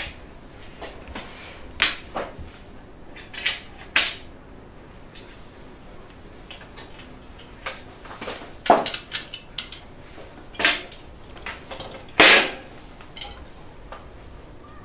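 Wire grilling basket clinking and rattling against a ceramic platter as it is set down and opened, and a fork clinking on the grate as grilled vegetables are lifted off. The clanks are scattered, with a quick cluster a little past the middle and the loudest one about twelve seconds in.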